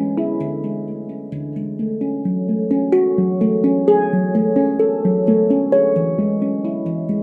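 Veritas Sound Sculpture stainless-steel handpan in F# Pygmy with 18 notes, played with the fingers. Notes are struck several times a second and ring on over one another, a little louder in the middle.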